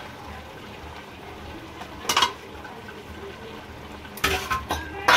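Steel spatula clinking and scraping against a black kadhai while goat tripe is stirred into the masala, in a few short clatters about two seconds in and again near the end.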